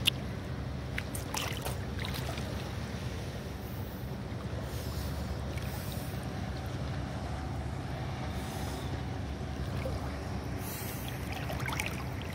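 Seawater lapping and splashing around a camera held at the surface by a swimmer, with a steady low hum underneath and a few sharp splashes near the start and again near the end.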